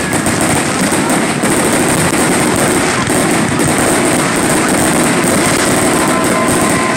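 Fireworks bursting and crackling without pause, a dense, steady crackle of aerial shells rather than separate booms.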